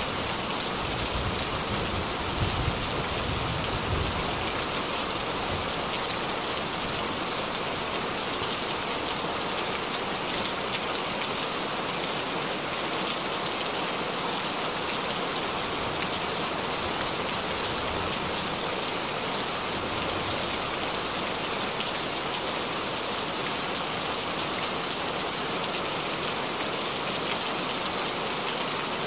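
Heavy rain falling steadily, a dense even hiss of drops on water and leaves, with a low rumble dying away in the first few seconds.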